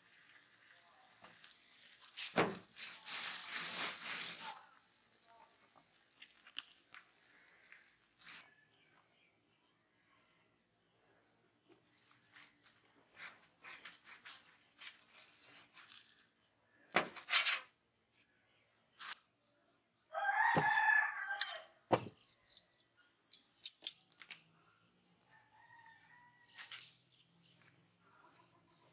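A cricket chirping steadily, about three high chirps a second, from about eight seconds in. A rooster crows once, about two-thirds through. A few sharp clicks of metal utensils on the griddle are heard, and a short hiss comes a few seconds in.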